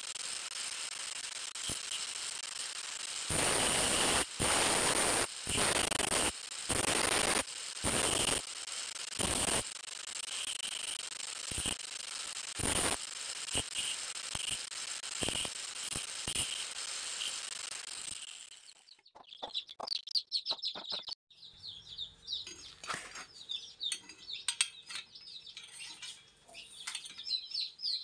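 Angle grinder running with a steady high whine while a copper tube is pressed against its abrasive disc in about ten short, loud bursts of grinding. The grinder stops about two-thirds of the way through, and birds chirping are left.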